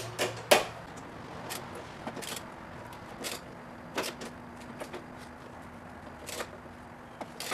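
Sharp metallic clicks and clinks at irregular intervals, the loudest about half a second in, as a 1/2-inch wrench works a bolt tight into a steel cradle-bolt bracket inside the car's frame rail.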